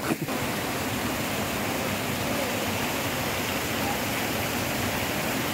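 Steady rush of running water flowing through a spring-fed fish pond.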